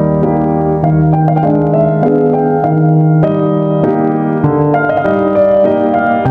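Background music played on piano or electric piano, a slow melody over held chords that change about once a second.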